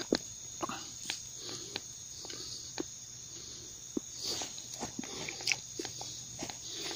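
Steady high-pitched chirring of crickets or other insects, with scattered light clicks and knocks throughout.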